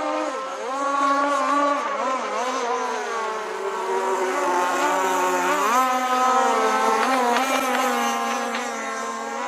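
Model boat motor running with a whining tone whose pitch wavers up and down as the throttle changes, then climbs sharply about five and a half seconds in and holds higher.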